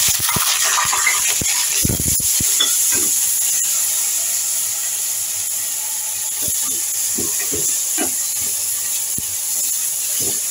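Chopped onions sizzling in hot ghee in a metal pot: a loud, steady hiss that eases slightly towards the end, with soft scrapes and knocks of a wooden spatula stirring them.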